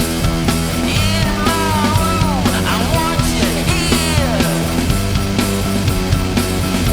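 Full rock band recording playing a punk-rock song, with a steady drum beat under dense guitars and bass. From about a second in to about four and a half seconds, sliding, bending notes rise and fall over the band.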